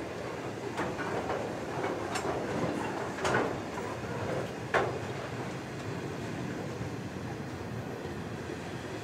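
Freight train wagons rolling slowly past: a steady rumble of steel wheels on rail, with several sharp metallic clanks in the first half, the loudest about three and five seconds in.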